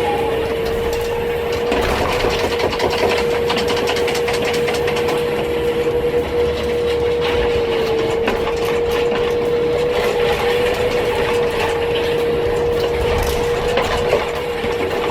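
Industrial wood shredder running steadily with a constant whine, while wood fed into it cracks and knocks as it is torn apart.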